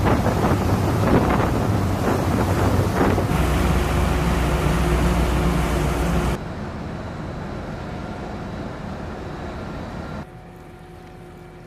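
Wind buffeting the microphone, then a steady low drone of a boat's engine, then quieter steady hum after two abrupt drops in level.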